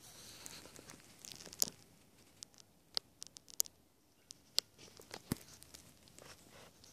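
Handling noise as the camera is moved: soft rustling over the first second and a half, then scattered light clicks and ticks, the sharpest about a second and a half in and again past five seconds.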